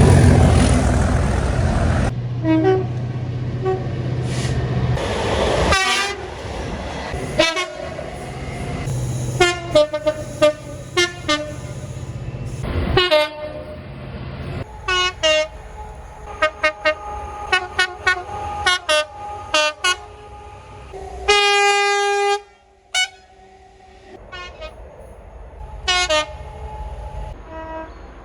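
A series of train horns: a loud passing-train rush at the start, then many short horn toots at several pitches over a low engine hum, and one longer, louder horn blast about three-quarters through that cuts off sharply.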